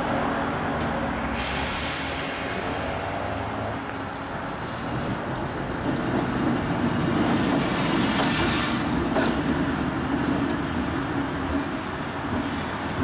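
Vintage electric tram running on its rails, a steady rumble of wheels and motors that swells a little in the middle and then eases.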